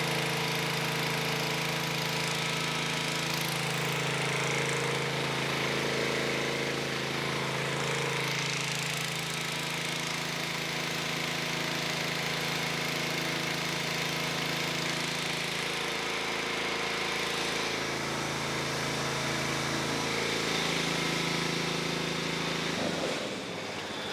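Tractor engine running steadily, its pitch shifting a few times in the second half, then shut off shortly before the end.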